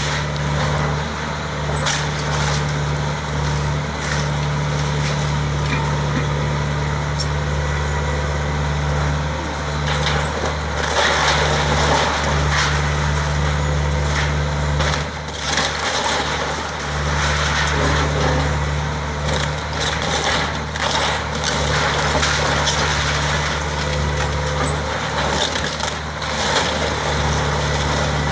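John Deere excavator's diesel engine running steadily while its bucket tears into a wood-frame house, with repeated cracking and crunching of splintering wood and falling debris.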